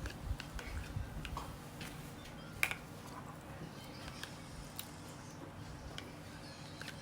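Quiet eating at the table: soft chewing and a few short light clicks of utensils on dishes, the loudest about two and a half seconds in, over a low steady hum.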